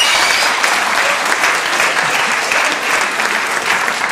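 Audience applauding steadily in a theatre hall.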